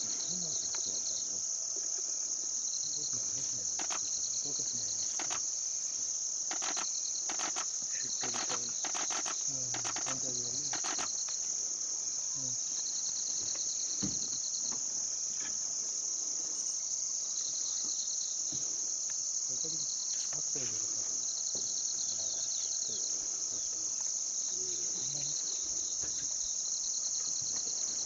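Chorus of crickets and other insects: a steady high shrill buzz with short trilled chirps repeating every second or two. A run of faint clicks sounds a few seconds in.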